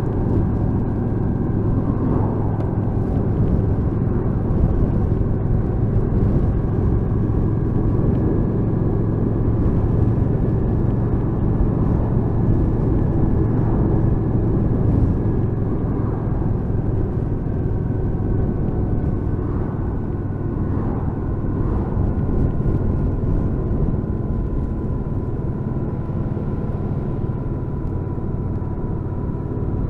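Kawasaki VN800 Drifter's 805 cc V-twin engine running steadily while the motorcycle is ridden, with a constant low hum that eases slightly lower in pitch in the second half.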